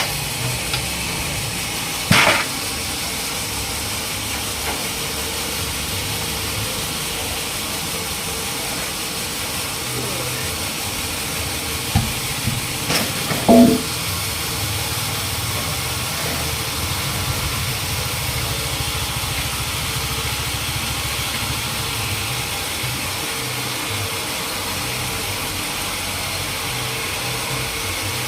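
Sawmill machinery engine running steadily, with a sharp knock about two seconds in and a few more knocks around the middle.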